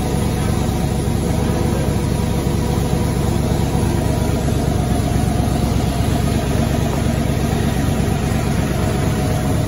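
Twin-turbo LS V8 idling steadily in a first-generation Chevrolet Camaro on its first startup after the engine swap. It runs unmuffled, its exhaust leaving through open pipes that stand straight up from the turbochargers.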